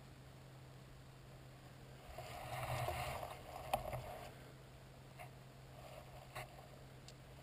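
Rustling handling noise for about two seconds as the shotgun carrying the camera is swung round, with a sharp click near the end of it and a few faint clicks afterwards.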